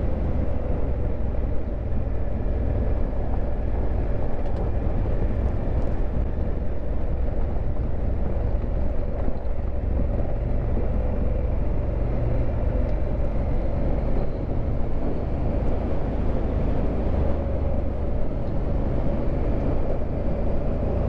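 2019 Honda Africa Twin's 998 cc parallel-twin engine running steadily while riding, with wind and road noise over it.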